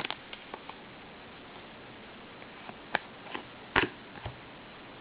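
Trading cards being handled after a pack is opened: a few soft clicks and taps of card stock, the sharpest about three seconds in and just before four seconds.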